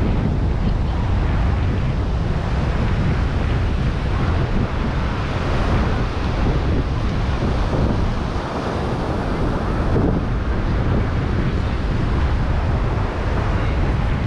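Wind buffeting the microphone in a steady rumble, with ocean surf washing on the beach underneath.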